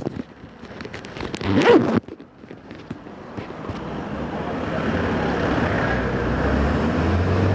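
Knocks and rustling of the camera being handled, a brief loud sound near two seconds in, then a motor vehicle engine running, growing steadily louder over about three seconds and holding.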